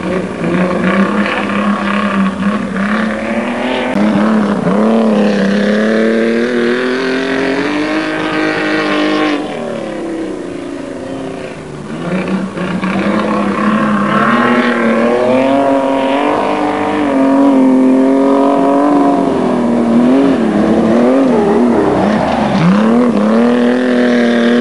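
Racing sedans' engines running hard in a pack, their pitch rising and falling as they accelerate and lift. Briefly quieter a little before halfway, then louder again.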